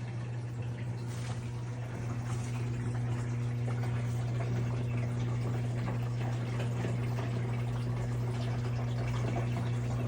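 Washing machine filling with water: water running into the tub over a steady low hum.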